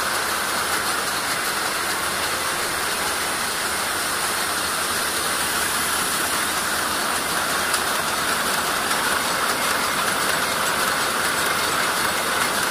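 Garant Maschinen T1441 industrial machine running steadily: an even mechanical running noise with a hiss over it.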